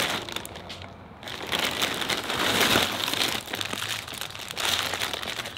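Clear plastic zip-top bags and a plastic shopping bag crinkling and rustling as they are handled and sorted, on and off, louder from about a second and a half in and again near the end.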